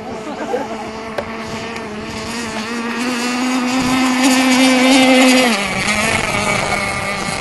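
Radio-controlled racing boat's motor running at high revs, a steady high-pitched whine that grows louder as the boat approaches. Its pitch drops sharply about five and a half seconds in as it passes by.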